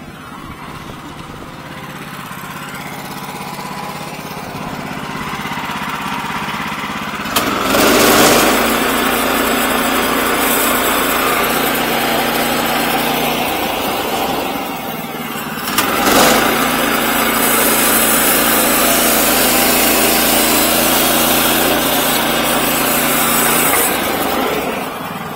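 Electric power tool cutting into a timber staircase stringer, hollowing out the tread pockets. It runs quietly at first, then cuts loudly and steadily for two long stretches of about eight seconds each, with a short break between them.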